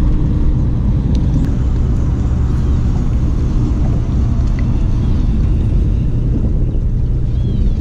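Steady low rumble with a continuous low hum.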